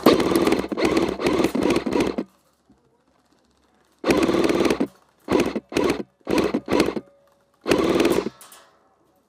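Airsoft gun firing on full auto from the gun-mounted camera's own weapon: a long burst of about two seconds, then after a pause a burst of about a second, four quick short bursts and a final burst near the end, each a rapid rattle of shots.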